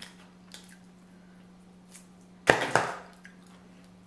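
Close-up seafood-boil eating sounds: a few faint wet mouth clicks, then one loud, sudden crunching eating noise about two and a half seconds in that lasts about half a second. A steady low hum runs underneath.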